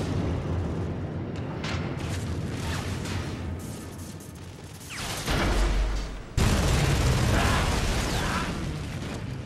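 Film battle sound effects of the battleship Yamato going down: a continuous rumbling din, a deep low boom about five seconds in, then a sudden loud blast at about six and a half seconds that slowly fades.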